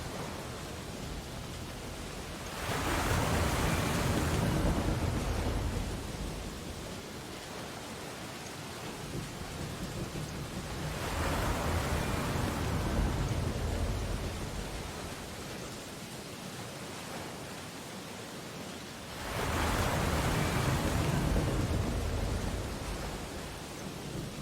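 Ocean waves breaking on a beach: three waves in turn swell and wash in, each a few seconds long and about eight seconds apart, over a steady hiss of surf between them.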